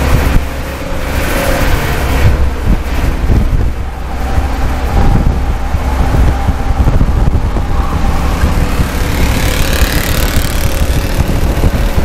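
Stock race car's engine running hard at speed, heard loud from inside the cockpit, with rushing wind and road noise that build near the end.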